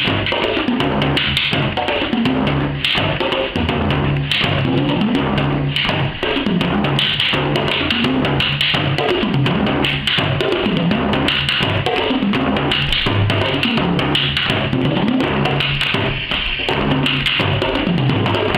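Two bodhráns played together with tippers in a fast, unbroken stream of strokes. The drums' low tones slide up and down in pitch, the bends a player makes by pressing a hand against the back of the skin.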